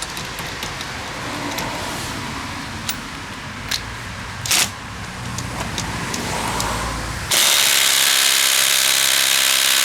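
A few handling clicks and knocks, then about seven seconds in a Ridgid cordless impact wrench starts hammering, loud and steady, as it drives a wheel lug nut tight at around 170 ft-lb.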